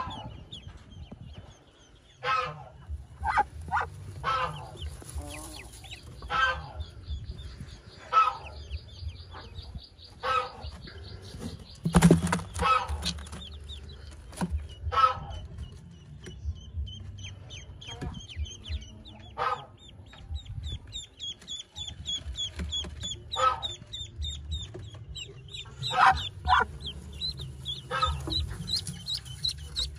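Ducklings peeping in rapid runs of high cheeps, mixed with many short, lower clucking calls, with a sharp knock about twelve seconds in.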